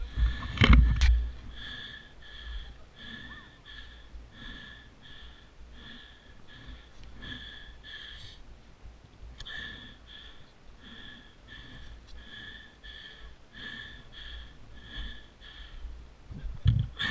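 Rapid, rhythmic breathing close to the microphone, about two breaths a second, with a loud knock and rumble about a second in and another near the end.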